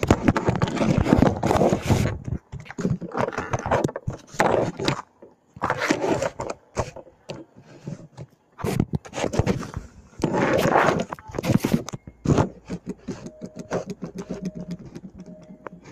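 Mini Beyblade tops spinning and knocking about in a plastic arena close to the microphone, heard as irregular loud scraping bursts with short gaps between them.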